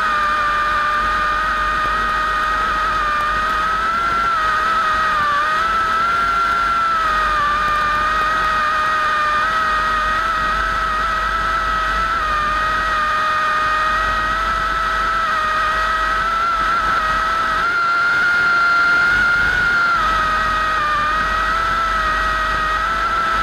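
Vintage warbird piston engines running at a steady speed, a loud high whine that wavers slightly in pitch over a low rumble.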